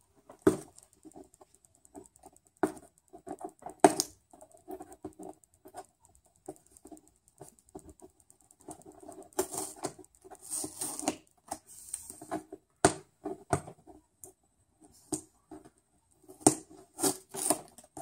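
Hands working at the packing tape on a cardboard box: scattered scratches, taps and scrapes of fingers and tape on cardboard, with a few longer scraping stretches of tape being pulled about halfway through and a sharp click a little later.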